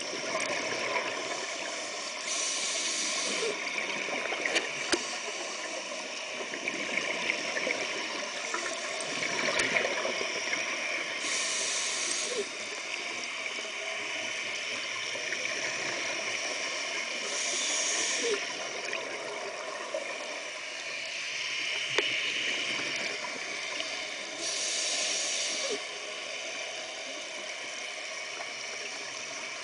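Scuba diver's regulator breathing, heard underwater: four hissing inhalations, one about every seven seconds, with the gurgling bubble bursts of exhaled air between them over a steady watery rush.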